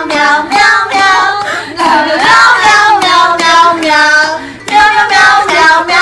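A high voice singing a song in short sung syllables, with one long wavering note about two seconds in.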